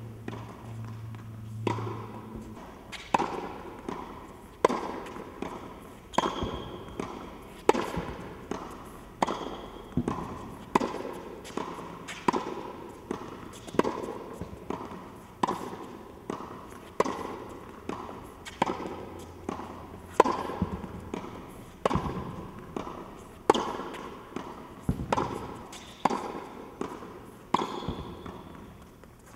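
Tennis ball being struck by rackets and bouncing on an indoor hard court during a baseline rally, sharp hits about every second and a half with smaller bounces between, echoing in the hall.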